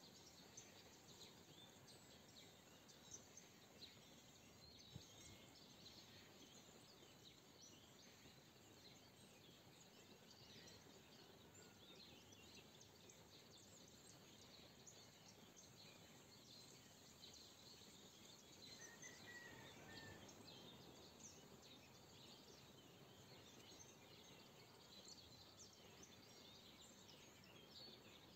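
Faint chorus of many small birds chirping and calling over a low steady hiss. A soft swell of noise rises and fades about two-thirds of the way through.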